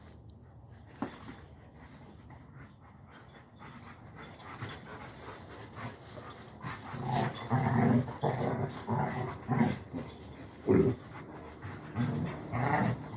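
Dogs at play making short bursts of low growling, starting about halfway through after a quiet stretch with a few light clicks.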